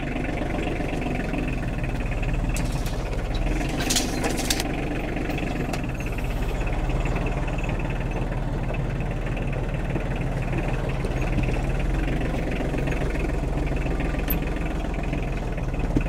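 Kioti compact tractor's diesel engine running steadily, with a few brief clanks about three to four seconds in.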